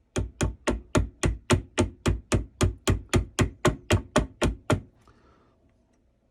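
Rapid, evenly spaced mallet strikes on a carving chisel, cutting into a wooden rifle stock, about three to four knocks a second, stopping about five seconds in.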